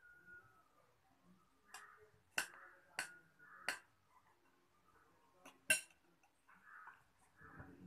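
A metal spoon clinking against a glass bowl and a tall glass while fruit salad is scooped: about six sharp clinks, spread unevenly, the loudest a little under six seconds in.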